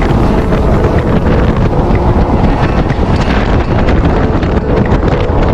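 Steady wind buffeting on the GoPro microphone of a jet boat running at speed, with the boat's engine and rushing water under it.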